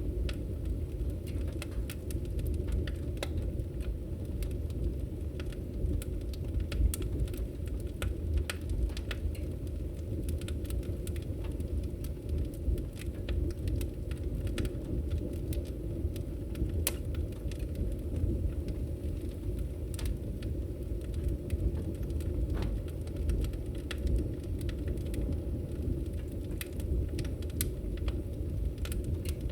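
Wood fire burning in a fireplace: a steady low rumble of flames with irregular crackles and pops scattered through it.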